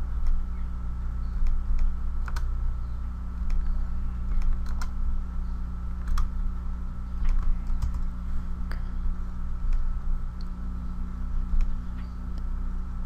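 Scattered clicks of a computer keyboard and mouse, about one a second, over a steady low hum.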